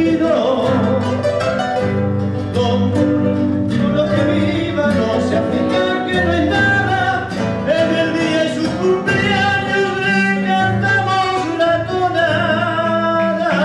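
A man singing a Latin American folk song into a microphone while playing a nylon-string classical guitar.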